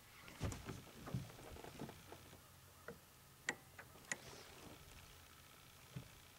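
Scattered light clicks and knocks from a fishing rod and reel being handled while playing a fish, with two sharper clicks about three and a half and four seconds in.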